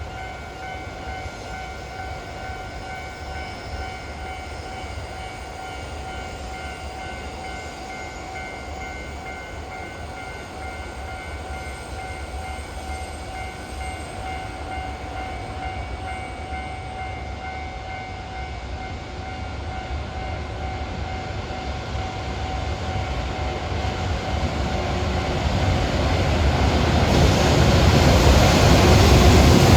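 A level-crossing warning bell rings with a steady pitched tone through roughly the first half. The rumble of an approaching container freight train hauled by an EH500 electric locomotive then grows steadily louder toward the end.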